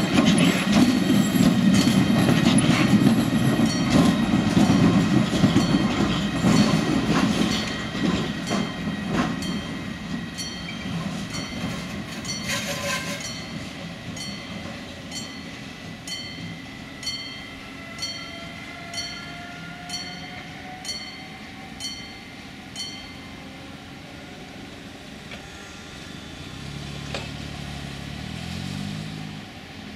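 Siemens Vectron electric locomotive running light past at close range: a loud rumble of wheels on rail that fades as it draws away, leaving clickety-clack of wheels over rail joints about once a second. Near the end a car's engine rises briefly.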